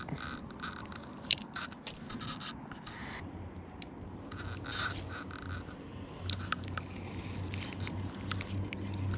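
Spinning reel on an ultralight rod being cranked in short spells, with scattered clicks and scrapes from hands on the rod and reel. A low hum comes in about halfway through.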